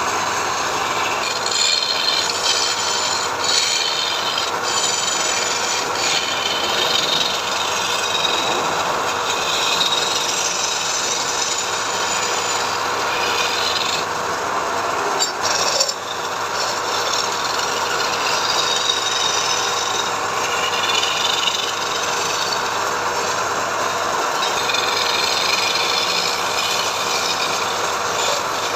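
Power woodworking tool cutting or abrading wood: a steady motor with a rough rasping noise of the work that shifts as it goes, briefly dipping about halfway through.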